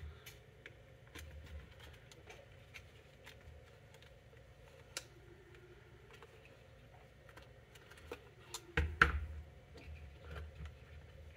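Scattered light clicks and knocks from handling the opened plastic housing of a Portacount 8020A, with a louder clatter of knocks about three-quarters of the way through.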